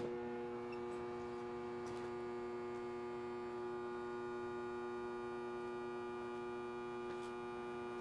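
Steady electrical hum from an air-conditioner compressor and condenser fan motor energised but stalled, unable to turn because their dual run capacitor has failed and reads zero microfarads; the hum holds at an even level while the motors draw a high locked-rotor current.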